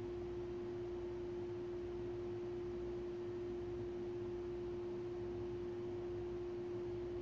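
A single pure tone held at one unchanging pitch without a break, over a faint low hum.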